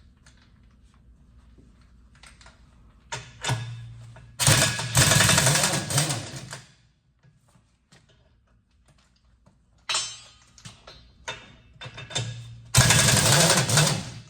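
Impact wrench running on wheel lug nuts in two bursts of about two seconds each, with clicks and a few shorter bursts between.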